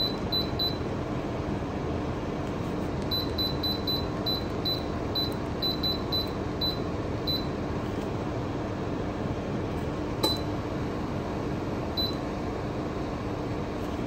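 Somogyi Home FKF 59201 wall-mounted fan heater giving short high beeps as its remote-control buttons are pressed: a quick run of about four at the start, about a dozen between roughly three and seven seconds in, then two single beeps later. Under them the heater's fan runs steadily with a low hum.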